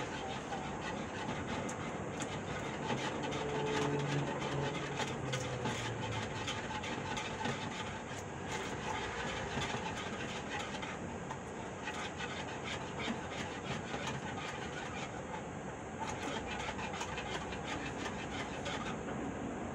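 Wire hand whisk beating egg white and sugar in a plastic bowl, a fast steady clatter of wires against the bowl, as hot agar-agar is mixed into the foam.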